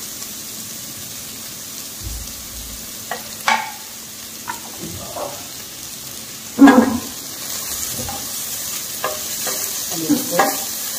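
Chopped onion and cabbage frying in hot mustard oil in a kadhai, being half-fried, with a steady sizzle that grows louder in the second half. A spatula knocks and scrapes against the pan several times, loudest about two-thirds of the way in and again near the end as it stirs.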